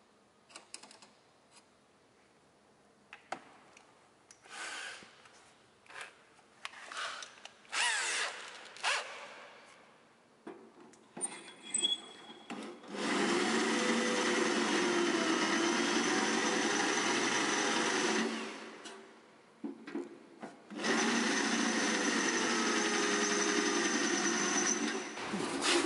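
Corded electric drill run in two steady bursts of about five seconds each, held against the rusty metal body of a 1950s toy horse. Before the drill starts, there are scattered clicks and knocks of handling.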